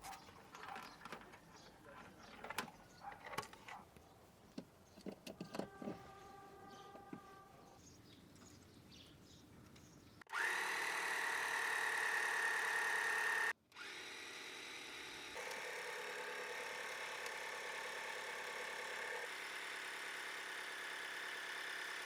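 Scattered clicks and knocks, then from about ten seconds in a small motor running at a steady pitch, which cuts off abruptly and comes back quieter.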